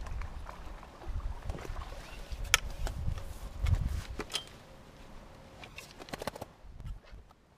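Carbon fishing pole being handled and shipped back in sections: a series of sharp clicks and knocks, the loudest about two and a half seconds in, over low rumbling thumps that die down in the second half.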